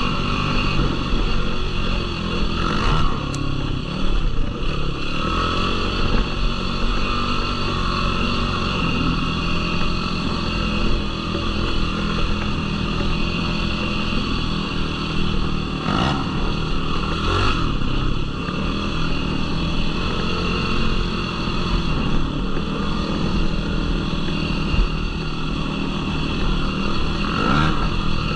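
Yamaha YFZ450R sport quad's single-cylinder four-stroke engine running on a trail ride, its pitch rising and falling with the throttle, with a few brief knocks.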